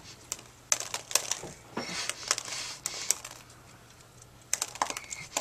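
Irregular sharp clicks and taps, like small hard objects being handled, with rustling and breathy noise between them. There are a few clicks about a second in and a quick cluster near the end.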